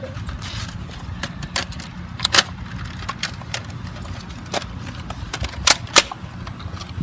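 Nerf blasters firing: a string of about eight sharp shots at uneven intervals. The loudest comes about two and a half seconds in, and a close pair follows near the end, over a steady low rumble.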